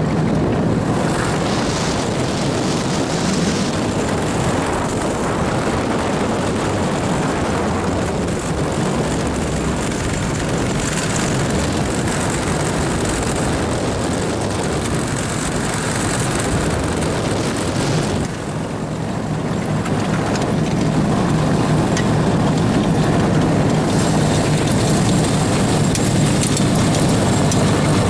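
Small motor vehicle's engine running steadily while riding across the ice, with wind on the microphone; the engine note dips briefly about two-thirds of the way through, then runs louder.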